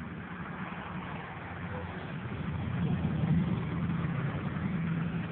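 A motor vehicle's engine running, a steady low hum that grows louder about halfway through and holds near the end.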